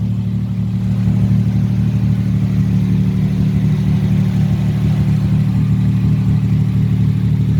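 The 1938 SS Jaguar 3½ Litre's straight-six engine idling steadily.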